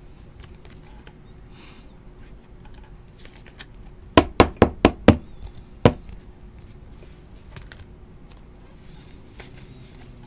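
Faint rustling of baseball cards being sorted by hand; about four seconds in, a quick run of five sharp knocks, then one more a moment later.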